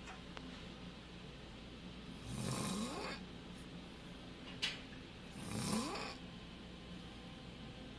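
A sleeping man snoring loudly: two long snores about three seconds apart, each rising in pitch. A short sharp click falls between them.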